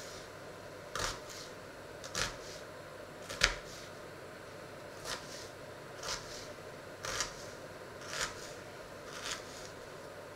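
Kitchen knife cutting a peeled onion on a wooden board: about eight crisp cuts, roughly one a second, each ending in a light knock on the wood. The cut about a third of the way in is the loudest.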